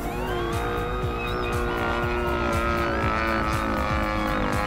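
EME35 single-cylinder two-stroke gasoline engine of a radio-controlled Super Chipmunk model plane in flight, running at high throttle. Its pitch rises in the first half second, then holds steady and sags slightly near the end.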